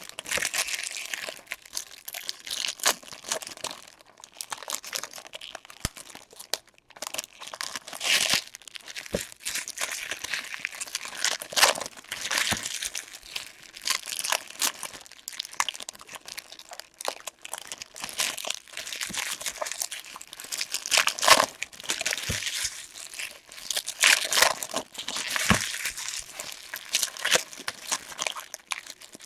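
Packaging from a hobby box of trading cards being handled: wrappers crinkling and tearing in irregular bursts, with scattered sharp crackles.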